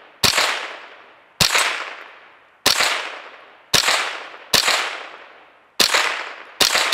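Freshly cleaned Thompson/Center TCR22 semi-automatic .22 LR rifle firing seven shots at a steady pace of about one a second, the action cycling each round. Each crack trails off in a long echo.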